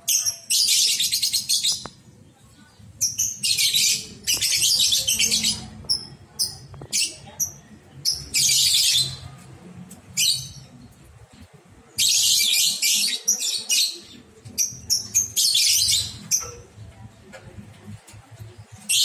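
Lovebirds chattering: repeated bursts of shrill, high-pitched chatter, each about a second long, with short chirps between them.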